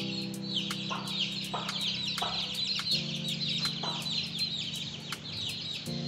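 A brood of chicks peeping without pause, many short high peeps each falling in pitch, several a second. Under them runs background music with sustained chords.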